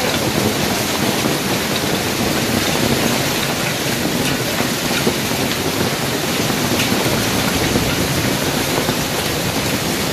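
Heavy rain mixed with hail pouring down on pavement and a parked car, making a dense, steady hiss with a few faint ticks of individual stones.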